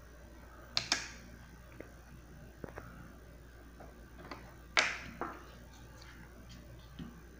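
Scattered sharp clicks and knocks, about seven, from hands handling the small metal and plastic parts of a homemade thermoacoustic engine and a disposable lighter on a table; the loudest is a little under five seconds in.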